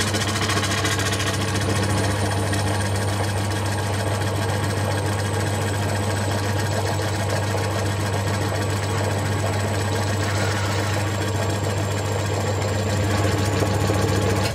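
Horizontal bandsaw running on its replacement electric motor, belt and pulleys turning, with a steady hum and a faint high whine above it. It cuts off at the end. This is the test run of the motor's new adapter shaft and re-bored pulley, which the owner judges a success.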